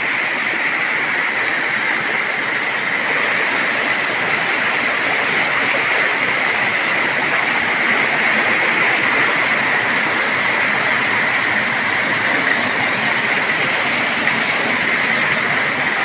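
Shallow waterfall water cascading down over boulders and rock slabs: a steady, even rush of water.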